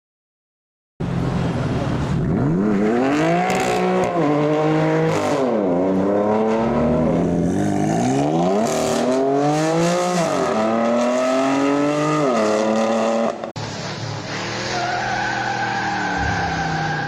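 Hamann-tuned BMW M4's twin-turbo straight-six with an aftermarket exhaust, driven hard. It starts about a second in, and the revs climb and drop sharply again and again, with tyre squeal. About 13 s in there is an abrupt cut to a steadier engine note.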